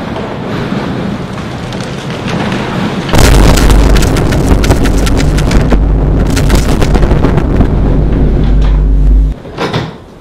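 Blizzard wind rushing in through an open outer door and buffeting the microphone. About three seconds in it jumps to a much louder, deep roar. The roar cuts off sharply near the end as the door is pulled shut, followed by a couple of knocks from the door and its latch.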